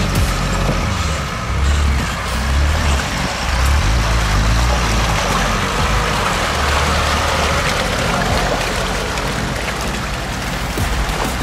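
An off-road 4x4's engine running under load while driving, with a steady rushing noise over it.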